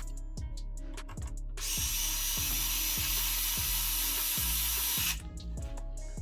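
Background music with a steady beat; about one and a half seconds in, a steady hissing noise starts, runs for about three and a half seconds and cuts off suddenly.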